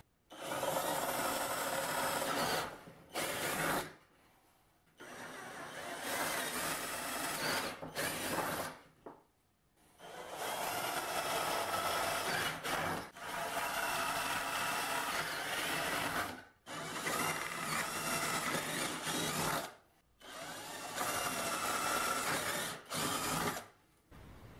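Cordless drill boring holes through plywood, running in repeated spells of one to three seconds with short pauses between holes.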